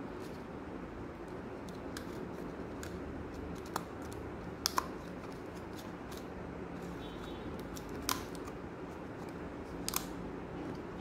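Sharp plastic clicks as clear plastic lids are pressed onto plastic cups, a handful in all with a close pair about five seconds in, over a steady low background hum.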